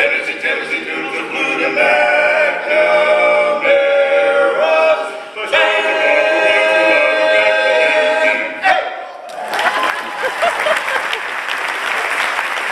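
Barbershop quartet singing a cappella in close harmony, ending on a long held chord; about nine seconds in, the audience breaks into loud applause.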